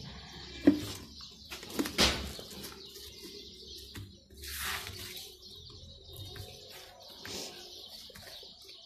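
Hot glue gun and foam-covered tin being handled, giving a few sharp knocks and taps (the loudest about a second and two seconds in) and a short rustle near the middle, with birds chirping faintly in the background.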